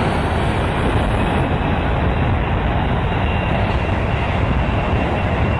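Jet airliner engines at takeoff thrust, a loud steady roar, with the jet blast gusting over the microphone and blowing sand across the beach.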